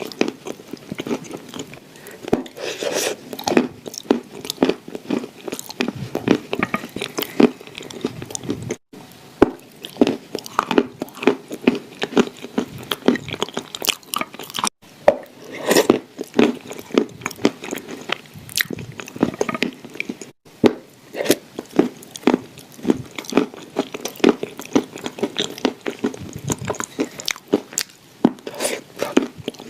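Close-up crunching and chewing of clay shortbread cookies: rapid crisp crackles from bites and chewing, broken by a few abrupt breaks in the sound.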